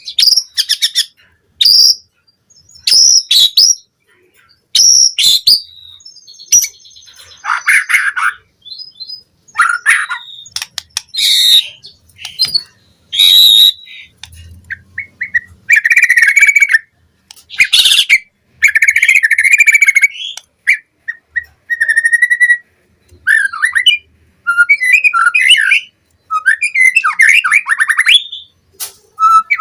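White-rumped shama (murai batu) singing: a long run of short phrases of clear whistles, slurred glides and rapid trills, separated by brief pauses.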